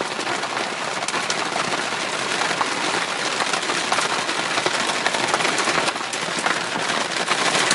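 Heavy rain falling steadily on the car, heard from inside: a dense, even hiss of countless drop impacts.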